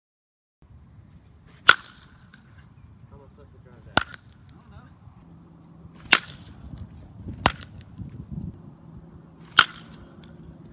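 Baseball bat hitting pitched balls in batting practice: five sharp cracks roughly two seconds apart, some with a brief ring after them, over a low outdoor background that starts about half a second in.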